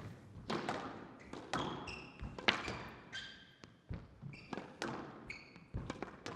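Squash rally: a ball hit by rackets and slapping off the court walls in a quick run of sharp knocks, with court shoes squeaking on the floor in short bursts.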